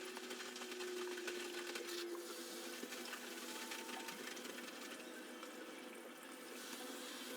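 A small machine running steadily with a rapid, fine ticking clatter over a low hum.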